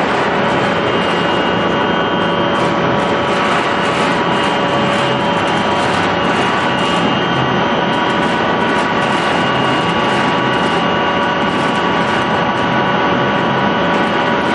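Biomass pellet mill and sawdust feed conveyor running, a loud, even machine noise with several steady whining tones held throughout.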